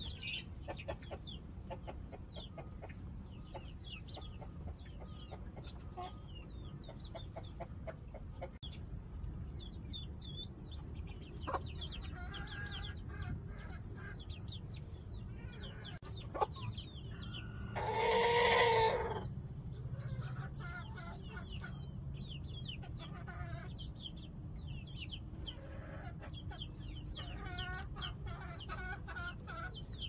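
Half-grown chicks peeping constantly in short, falling chirps while their ogolgye mother hen clucks softly now and then. About two-thirds of the way through, one loud, drawn-out chicken call lasting about a second and a half stands out, and there are two sharp clicks a little before it.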